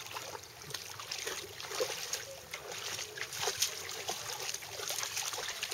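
Lake water lapping and splashing in the shallows around the boats, with many small irregular splashes.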